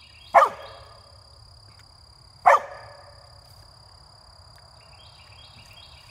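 A dog barking twice, single sharp barks about two seconds apart.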